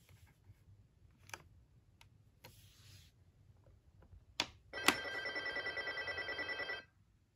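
Nickelodeon Talk Blaster toy telephone's electronic ringer playing a rapidly pulsing ring for about two seconds, cutting off sharply. Before it come a few plastic clicks from the ringer-select dial being turned and the red button being pressed.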